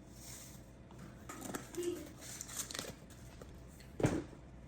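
Light crinkling and small clicks of spice containers being handled as seasoning is added, with one sharp knock about four seconds in.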